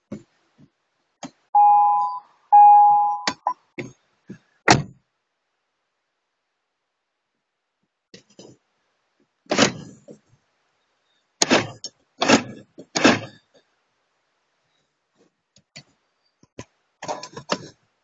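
Car horn of a 2004 Hyundai Accent sounded twice, two short two-note honks, followed by a string of knocks and thunks as things in the cabin are handled.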